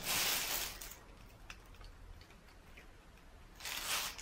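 Trigger spray bottle squirting degreaser: a short hissing spray at the start and another near the end, with faint ticks in between.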